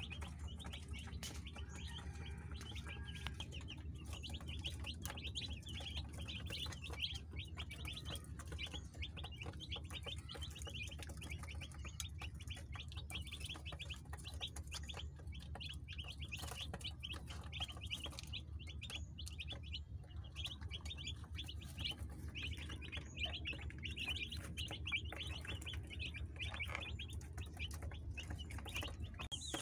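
A brood of broiler chicks peeping continuously, many high-pitched chirps overlapping, with a steady low hum underneath.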